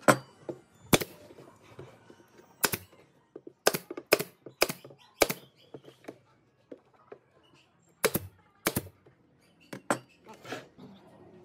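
Pneumatic brad nailer firing brads into pine boards: about ten sharp shots at irregular intervals, with a pause of a few seconds in the middle.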